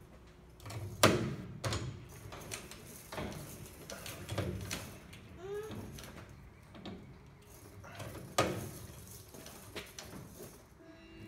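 A hand tool worked against the rocket launcher tubes under an aircraft wing. It gives two sharp metallic snaps, one about a second in and one near the end, with lighter knocks and clicks between them and a few short squeaks about halfway.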